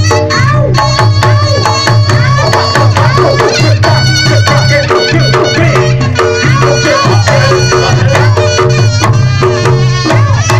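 Reog Ponorogo gamelan accompaniment played live: a slompret's wavering melody over rapid kendang drumming and steady ringing gong-chime tones, with a regular low pulse.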